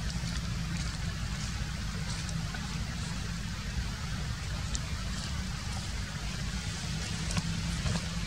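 Steady outdoor background noise: a low rumble under an even hiss, with a few faint scattered clicks.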